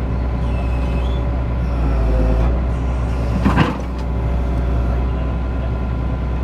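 Excavator engine running steadily, with faint squeals early on and one sharp knock about three and a half seconds in.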